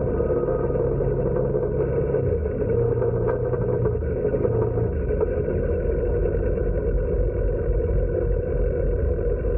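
Four-wheeler (ATV) engine running as it is ridden, under a steady rumble. The engine note steps down about two seconds in and changes again around five seconds in.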